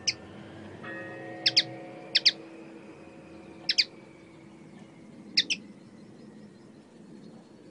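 Caged common linnet calling: five short, sharp chirps spread across a few seconds, most of them given as quick doubled notes.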